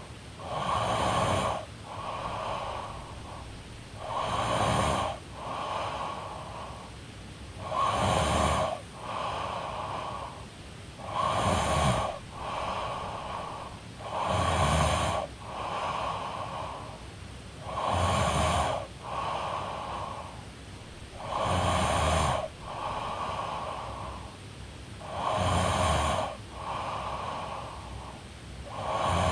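A woman snoring in her sleep in a slow, even rhythm. Each loud snoring breath, with a low rattle, is followed by a softer breath, about every three and a half seconds, eight or nine times.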